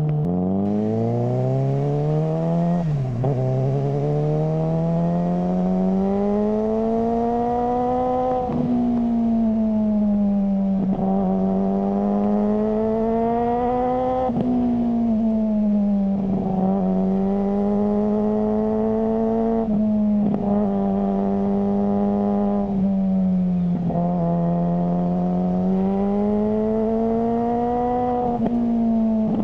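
Suzuki GSR600's inline-four engine running through a GPR Ghost aftermarket exhaust under way, its note climbing steadily for a few seconds and then dropping back sharply, over and over, as with throttle changes and gear shifts.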